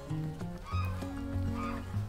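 Background music with a steady bass line and notes changing in steps.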